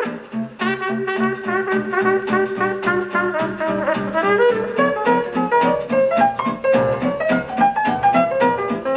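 Vinyl record of brass-led jazz playing on a Trio PC-350 idler-belt turntable through an Audio-Technica AT-3M mono cartridge. A horn melody moves over a steady beat.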